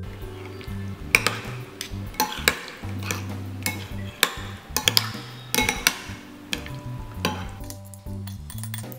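A metal spoon stirring raw oysters in ketchup in a ceramic bowl, with irregular clinks and scrapes of the spoon against the bowl, thinning out near the end. Background lounge music plays underneath.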